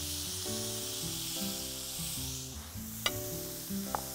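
Steak sizzling on a hot grill pan, a steady hiss under soft background music. A sharp clink about three seconds in and a lighter one near the end.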